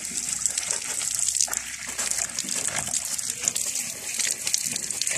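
Water gushing and splashing from a tap on a black plastic water pipe, a steady hiss broken by small irregular spatters.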